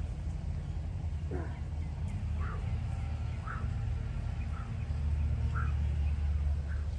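Steady low rumble with a short chirping call repeated about once a second, likely an animal or bird calling.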